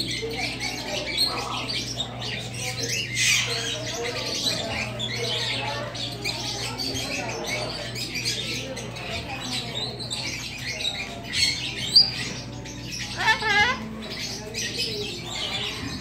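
Parrots squawking and chattering all together, with a few sharp, louder squawks and a wavering call about three-quarters of the way through.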